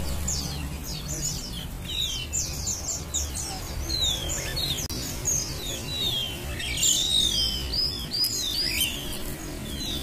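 A flock of caged Malaysian pied fantails singing together: many overlapping quick, falling whistled notes, busiest about seven to nine seconds in, over a low background rumble.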